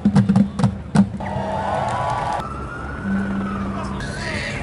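A few regular drumbeats, then a siren wailing with a slow rise and fall in pitch over the crowd.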